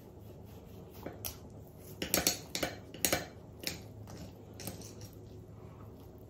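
Knife and fork clicking and scraping against a plate while cutting through a soft baked crepe: a run of light, sharp clicks, most of them in the middle.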